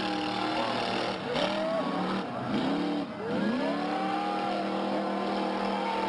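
Monster truck engine revving, its pitch dropping and climbing again several times.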